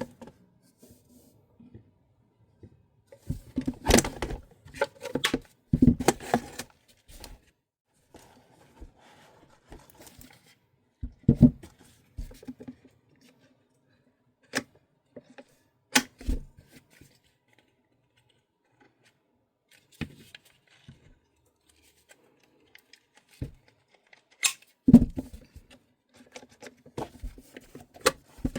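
PTS EPS airsoft rifle stocks being handled: scattered clicks, knocks and rattles, in bursts about four to seven seconds in, again around eleven and sixteen seconds, and near the end.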